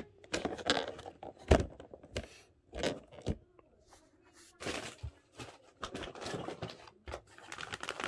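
Plastic packaging being handled and rummaged: irregular crinkling, rustling and scraping, with a sharp knock about one and a half seconds in.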